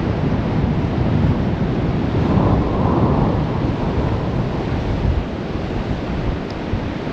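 Strong wind buffeting the microphone in a loud, uneven rumble, over the wash of surf breaking on a beach. The noise swells briefly near the middle.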